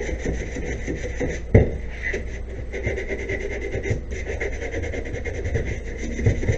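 Sandpaper rubbed by hand in quick back-and-forth strokes on the plastic shell of a TRS-80 Model III computer case, with a single knock about a second and a half in.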